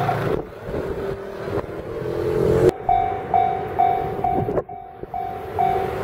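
Level-crossing warning bell ringing in a steady repeated ding, about two strikes a second, over the rumble of an approaching train. The bell fades under the rumble for a couple of seconds and comes back loud about three seconds in.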